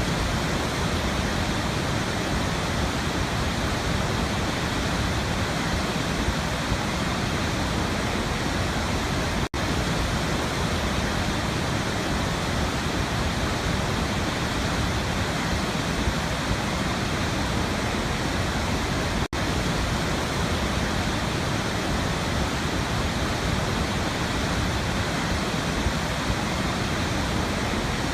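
Waterfall, a steady, even rush of falling water, broken twice by a split-second dropout.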